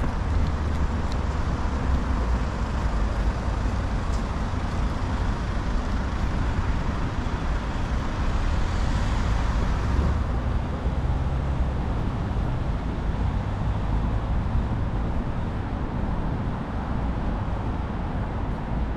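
Steady road traffic noise from passing cars, with a deep rumble underneath and a brief swell of brighter hiss about halfway through.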